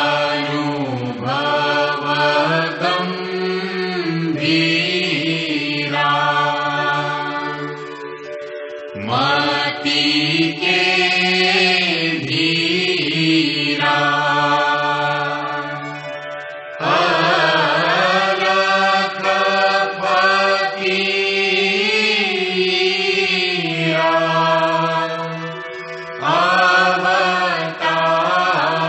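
A devotional Hindu aarti chanted in long sung lines, each new phrase starting about every eight or nine seconds.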